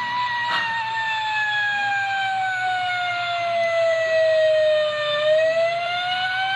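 Fire-siren sound effect from the model train's DCS-controlled siren module: one wailing tone that slowly falls in pitch for about five seconds, then starts to climb again near the end.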